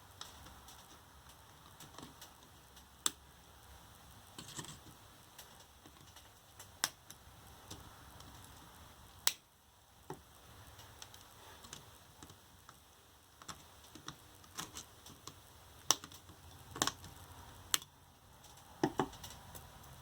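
Irregular sharp clicks and snaps, a few seconds apart, from taking apart a scooter's 18650 lithium-ion battery pack: the spot-welded nickel strips being snipped and the cells worked loose by hand.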